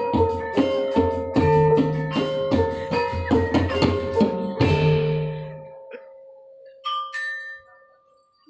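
Gamelan music: bronze metallophones struck in a steady rhythm over low ringing gong tones. The piece ends with a final stroke about four and a half seconds in and rings out, followed by a lone higher struck note that rings briefly near the end.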